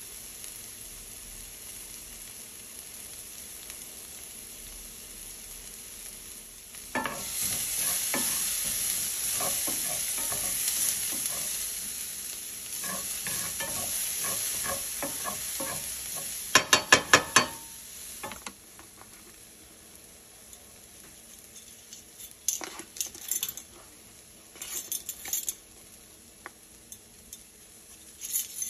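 Chopped onions sizzling in oil in a nonstick frying pan, stirred with a wooden spoon. The sizzle and scraping get louder about a quarter of the way in. About halfway through comes a quick run of sharp taps, after which the sizzle drops and a few scattered clicks follow.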